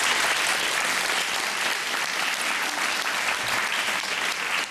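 Large studio audience applauding steadily.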